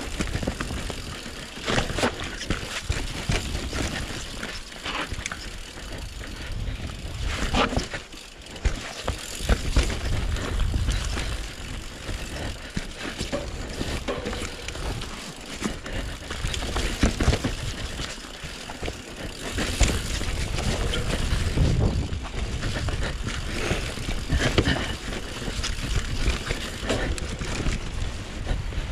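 Mountain bike riding down a dirt trail: tyres rolling and the bike rattling over rough ground, with frequent sharp knocks from bumps and a low rumble of wind on the microphone.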